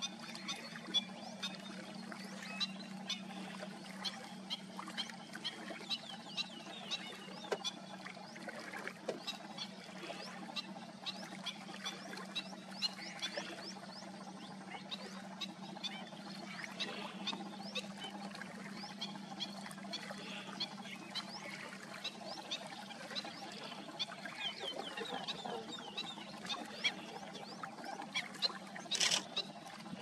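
Wetland ambience: a steady low hum under a constant scatter of short chirps and ticks from small animals, with two sharper clicks near the end.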